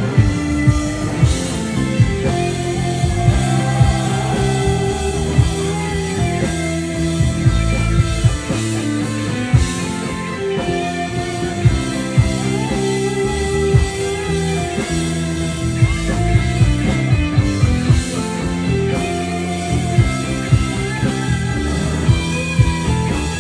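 Live rock band playing: electric guitars over a steady drum beat, mostly instrumental.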